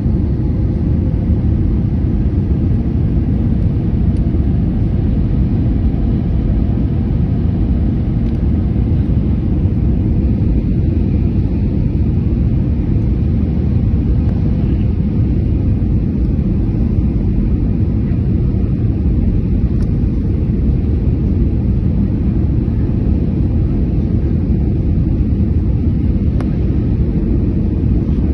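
Airliner cabin noise in flight, heard from a window seat inside the cabin: a steady, deep rumble that holds at an even level.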